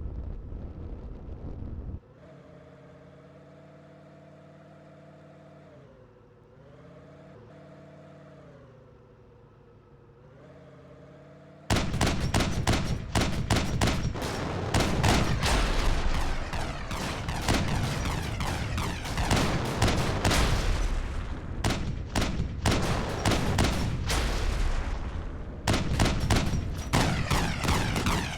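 An engine runs steadily, its pitch dipping twice. About twelve seconds in, it breaks into a loud, rapid, continuous string of bangs and pops: exhaust backfires of the kind that throw big flames.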